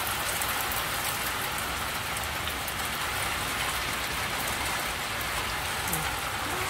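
Heavy rain pouring steadily: an even hiss with scattered faint taps of drops.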